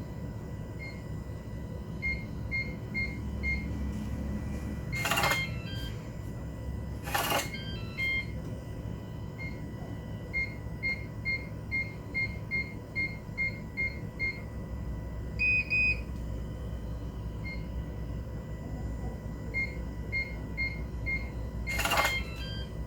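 Digital keyless door lock beeping at each keypad press, short high beeps in quick runs. Three times, about 5, 7 and 22 seconds in, there is a louder half-second burst from the lock's motorized bolt locking or unlocking.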